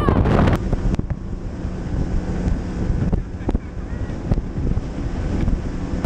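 Wind buffeting the microphone on a bass boat running at speed across open water, with a faint steady hum of the outboard motor beneath it and a few sharp knocks.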